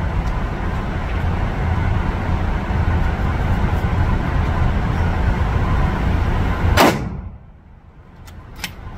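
A steady low rumble of background noise, then a single rifle shot from a scoped bolt-action rifle about seven seconds in. After the shot the background noise drops away sharply, and a few light clicks follow near the end.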